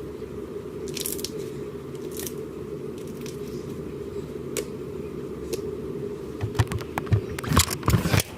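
Slime being squeezed and poked by hand, making scattered small crackles and clicks, then a quick run of squishing, crackling pops in the last two seconds, over a steady low background hum.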